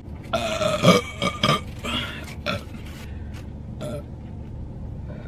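A woman belches: one drawn-out burp in the first second, followed by a few short, softer sounds.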